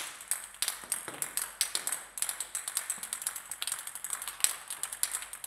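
Several plastic table tennis balls bouncing on a hard floor: a fast, irregular patter of sharp, high clicks, several a second and often overlapping.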